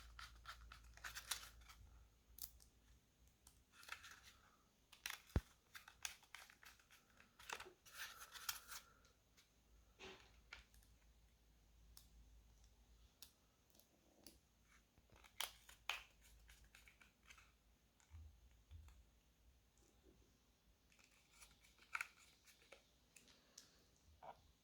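Faint, scattered clicks, scrapes and plastic rustling from laptop parts being handled while the hard drive and RAM are swapped, with one sharper click about five seconds in.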